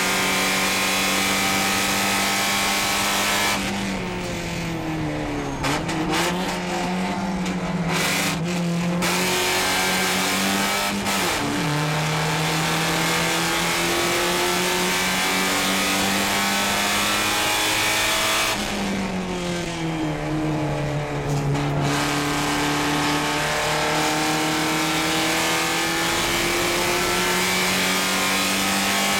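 Porsche 944 Spec race car's four-cylinder engine heard from inside the cockpit, pulling at high revs. Twice, about four and nineteen seconds in, the engine note falls as the driver lifts to brake, with short rising blips on the downshifts, then it pulls hard again.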